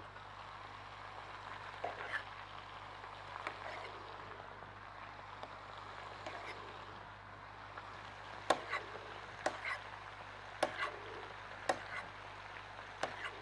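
Quiet kitchen work: a faint steady hiss, with a few light knocks and then sharp knife or utensil knocks about once a second in the second half.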